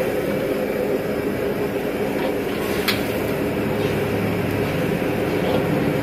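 Steady roar of a gas wok burner, with a brush scrubbing water around the inside of the steel wok and one sharp clack about three seconds in.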